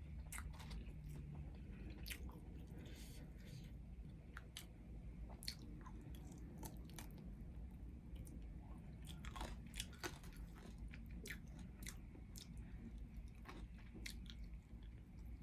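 A person chewing food close to the microphone: faint, irregular mouth clicks and small crunches.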